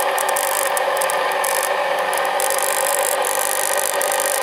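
Rotary inverter (motor-generator with a 230-volt output) running steadily: a constant hum of many tones with a flickering, scratchy hiss from the carbon brushes on the commutator, the end that makes most of the noise; the brushes need cleaning.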